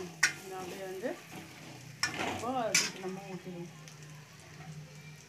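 A steel ladle scrapes and knocks against a stainless-steel kadai while stirring garlic, shallots and spices frying in shallow oil, with a light sizzle. The sharpest knocks come near the start, about two seconds in, and just before three seconds.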